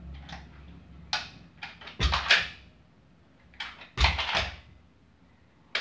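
Sharp clicks and clacks of a pistol being handled in a dry-fire draw-and-reload drill, with louder clusters of clacks about two and four seconds in.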